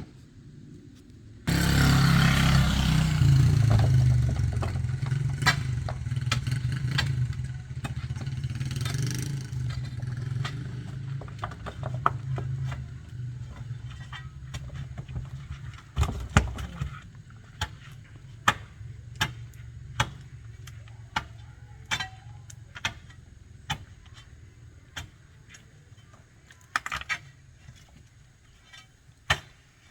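A motor vehicle engine starts suddenly and runs, fading away over about fifteen seconds. Then a series of sharp knocks follows, roughly one a second.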